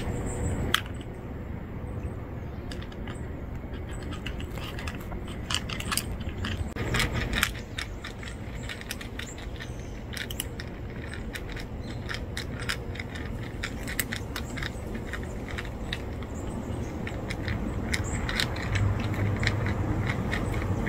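Two cats crunching dry kibble and nosing it around a plastic tray: dense, irregular small clicks and crackles, over a low steady rumble.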